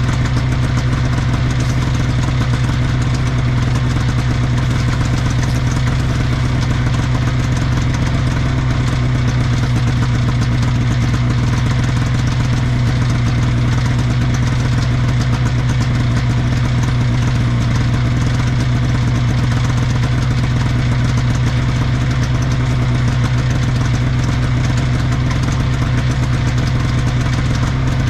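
1979 Scorpion Whip TKX 440 snowmobile's two-stroke Cuyuna engine idling steadily at an even pitch.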